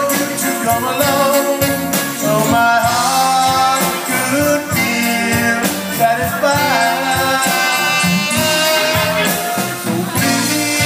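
Live band playing: a horn section of trumpet and saxophone over drums and electric guitar, with jingling hand percussion.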